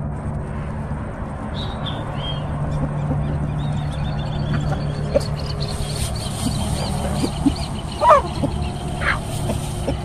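A flock of free-range chickens foraging on grass, with scattered soft pecking clicks and one short loud squawk about eight seconds in. Faint high chirping and a steady low hum run underneath.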